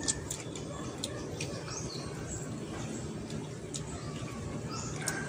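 Quiet eating sounds, light clicks of hands and food on plates, with a couple of short bird chirps in the background.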